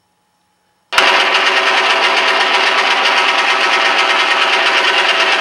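Recorded machine-gun fire played by a Shockwave sound module through the two 3-inch speakers built into an RC A-1H Skyraider model. It comes in suddenly about a second in as one loud, rapid, continuous burst and is still firing at the end.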